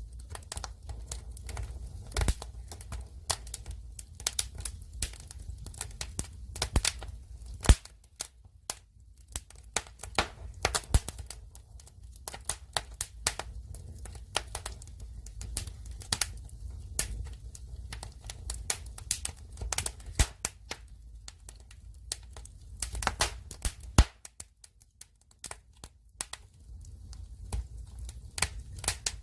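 Wood fire burning, the logs crackling with irregular sharp pops and snaps over a low rumble of flame. The loudest pops come about 8 and 24 seconds in.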